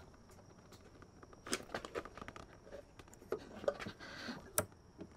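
Faint scattered clicks and small metallic knocks of hand tools being handled and worked, starting about a second and a half in, with the sharpest click near the end. A faint steady high tone runs underneath.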